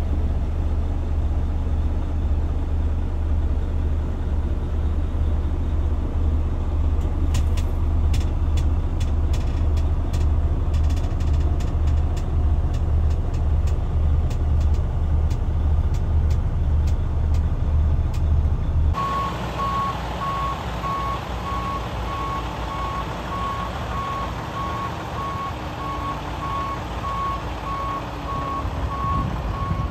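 Freightliner Cascadia semi tractor's diesel engine running, heard inside the cab as a heavy low rumble with a few light clicks. Partway through, outside, a backup alarm beeps steadily at an even pace over the truck's engine.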